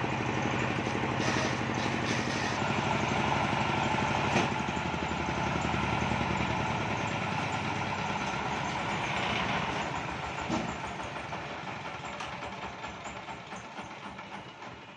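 Diesel engine of a circular-saw sawmill rig running steadily, with one sharp knock about four seconds in. Its sound then thins and dies away gradually over the second half.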